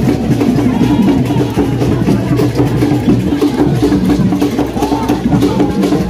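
Drumming and percussion in a steady, driving rhythm, with voices singing over it.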